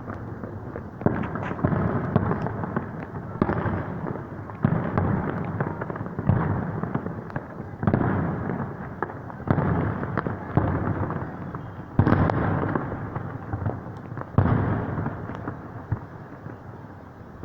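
Aerial fireworks shells bursting one after another, about eleven booms roughly every second or so, each trailing off in a rolling echo. The bursts stop and the sound fades near the end.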